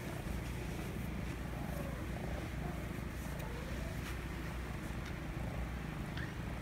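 Kitten purring steadily, close up.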